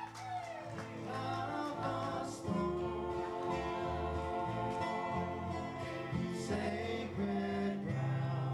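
Acoustic guitar playing a song live, with voices singing over it.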